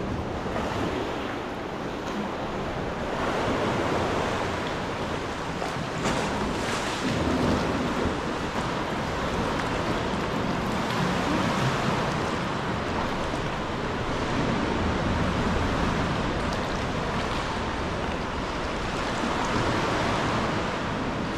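Sea swell surging and sloshing against the rock walls inside a sea cave, a continuous wash of water that swells and eases every few seconds.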